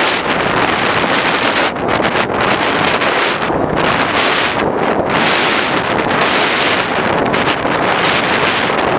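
Steady, loud rush of airflow buffeting the onboard GoPro's microphone on an X8 FPV plane in flight.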